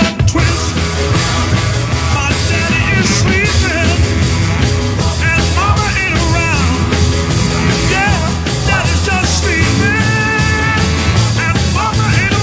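Rock music with singing and a steady beat.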